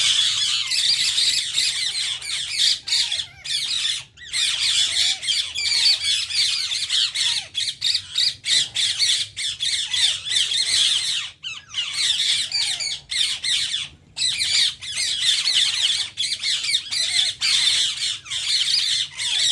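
Indian ring-necked parakeets (rose-ringed parakeets) chattering and squawking: a dense, continuous run of shrill calls with a few brief breaks.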